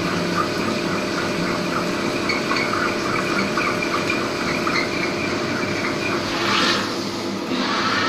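CNC lathe boring out a hydraulic piston rod with a 30 mm HSS twist drill under flood coolant: coolant spraying and splashing steadily, with faint intermittent whistling from the cut. About six seconds in the whistling stops and a short louder hiss follows as the drill withdraws from the bore.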